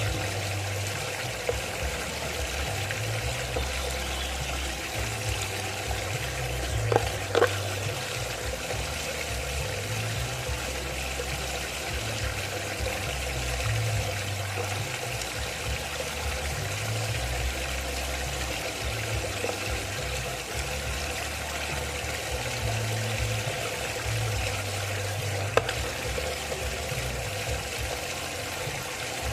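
Water swirling steadily in a whirlpool vortex, with an uneven low rumble underneath. Sharp knocks come twice about seven seconds in and once near the end.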